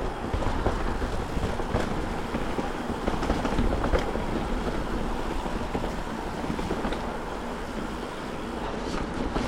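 Mountain bike riding down a dirt trail: wind buffeting the microphone over the steady rumble of the tyres, with a few light rattles and knocks from the bike.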